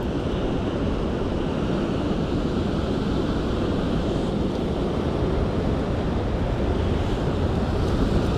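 Ocean surf washing on a sandy beach, with wind buffeting the microphone: a steady rush with no distinct events.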